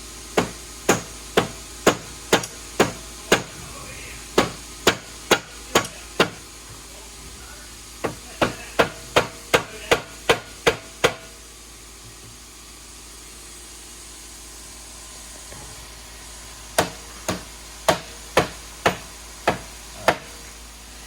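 Rubber mallet striking metal repeatedly, about two sharp blows a second, in three runs with pauses between, smacking up under a handlebar riser bolt on the front end of a 1978 Harley-Davidson Shovelhead to knock it loose.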